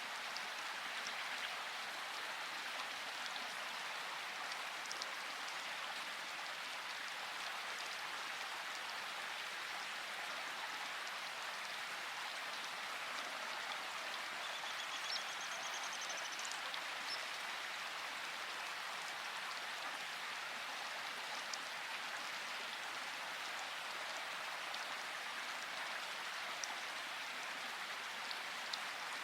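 Steady rain falling: an even hiss with scattered individual drops ticking.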